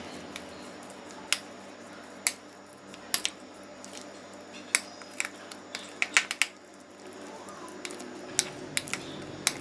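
Metal spoon clinking against a ceramic bowl while stirring a thick lentil paste: a dozen or more sharp, irregular clicks, bunched in places.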